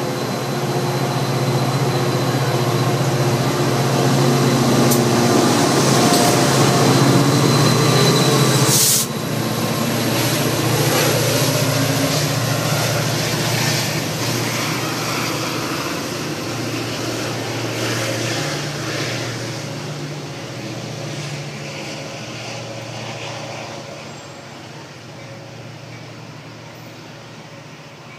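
Metra diesel commuter train pulling out along the platform: steady running and rolling noise with a low engine hum that builds, a sharp hiss about nine seconds in, after which it drops and then slowly fades as the train moves away.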